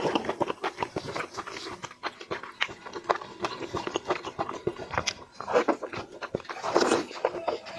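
Close-up eating sounds: a steady run of quick wet smacking and chewing clicks, with louder, noisier mouthfuls about five and a half and seven seconds in.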